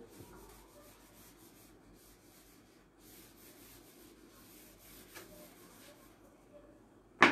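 Faint rubbing hiss of a hand-held eraser wiping marker writing off a whiteboard, in two spells with a short pause between them. A single sharp knock near the end.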